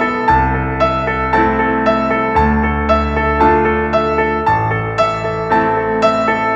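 Background music: a piano or electric-piano piece playing steady repeated notes over held chords and a low bass that changes every couple of seconds.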